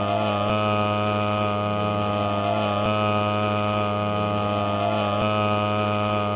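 Steady droning hum with a dense stack of overtones, its pattern repeating about every two and a third seconds like a looped sound.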